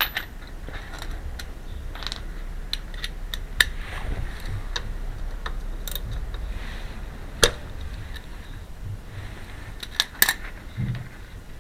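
Scattered sharp clicks and knocks, like handling small hard objects, with the sharpest near the middle and a close pair about ten seconds in, over a low steady hum.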